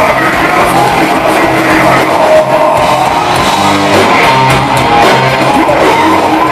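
Death metal band playing live and loud, with heavily distorted electric guitar to the fore over bass and drums.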